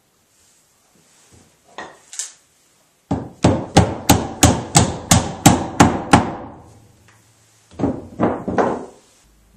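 Hammer blows on oak, driving a peg into a draw-dowelled table joint: two knocks, then a steady run of about ten sharp strikes at about three a second, then a few lighter knocks near the end.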